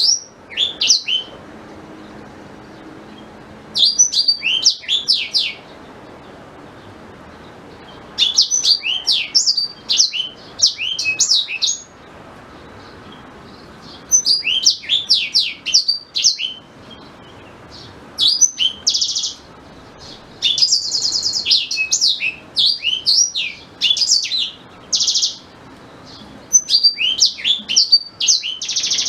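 Black-throated canary (blackthroat) singing: bursts of quick, high twittering notes and sweeping whistles, each a second or two long, separated by short pauses. A few fast trills come in the second half.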